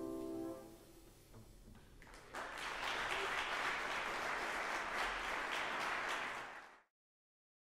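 Audience applause in a hall, starting about two seconds in after the last band chord has rung away, then cut off suddenly near the end.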